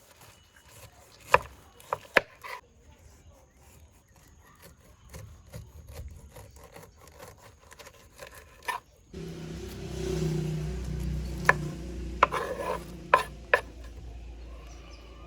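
Knife peeling and cutting a pineapple's rough rind, the blade rasping through the skin and clicking sharply against the board several times. About nine seconds in a steady low hum starts up, and further sharp clicks come over it.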